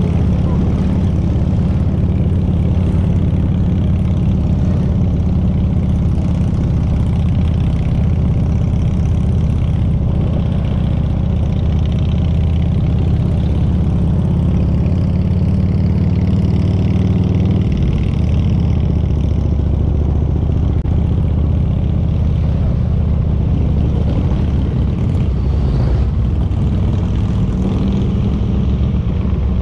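Motorcycle engine running steadily while riding, a deep low note that holds throughout and shifts slightly a little past halfway.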